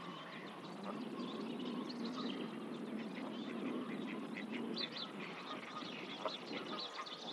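Outdoor birdsong: many short, high chirps, more frequent in the second half, over a steady low rushing noise.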